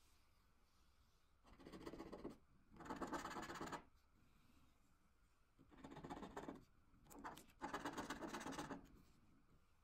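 Swisslos Bingo Lotto scratch card having its coating rubbed off with a small yellow scraper, in about five short bursts of scratching of a second or less each, with short pauses between.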